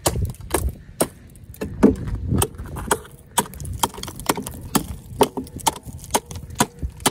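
Hatchet chopping the ice crust of a frozen stock water tank around a floating salt-water jug. There are repeated sharp strikes, about two to three a second, as the ice is broken up.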